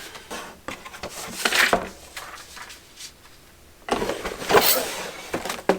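Plastic parts bags rustling and crinkling as kit parts are handled, in two louder spells about a second and a half in and again around four to five seconds in.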